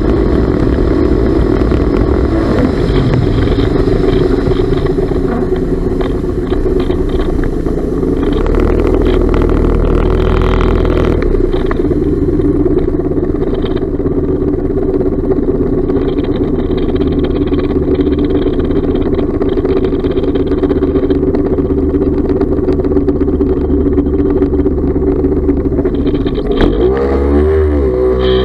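Yamaha Wave Raider 1100's three-cylinder two-stroke engine running steadily at speed under throttle, then revving up near the end as the craft accelerates, with water spraying off the hull. It pulls cleanly on its new fuel pump, which cured a bog off idle.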